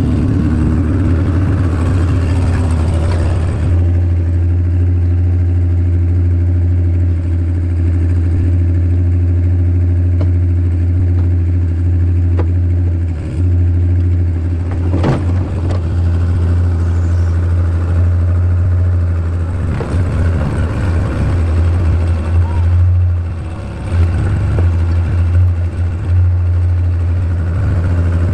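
Tracked skid steer's engine running steadily at a constant speed, with one sharp knock about halfway through.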